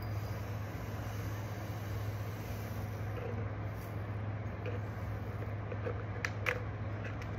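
Steady low electrical hum with a constant background hiss. About six seconds in come a few light ticks as laser printer toner is tipped from a folded paper into a glass jar.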